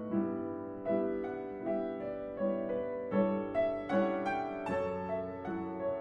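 Background piano music: a gentle melody of single struck notes, each ringing and fading before the next.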